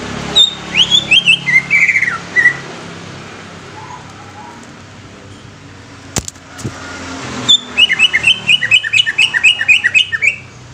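Cucak ijo (green leafbird) singing. First comes a short phrase of falling whistled notes, and after a pause of several seconds a fast run of repeated chirping notes, about five a second. A single sharp click sounds in the pause.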